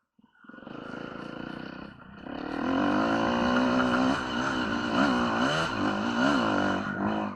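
Enduro motorcycle engine running after a brief gap. It gets much louder about two and a half seconds in, then its pitch rises and falls again and again as the throttle is opened and closed.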